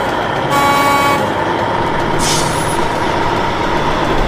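Large fuel tanker truck driving through a bend, its engine running steadily. A horn toots briefly about half a second in, and there is a short hiss a little after two seconds.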